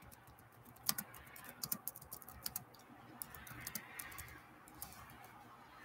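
Faint, irregular clicking of typing on a laptop keyboard.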